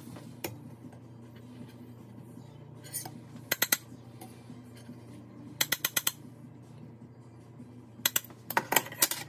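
Metal spoon clinking against metal cookware in three quick runs of several sharp taps each, as skimmed milk solids are knocked off the spoon while clarifying butter.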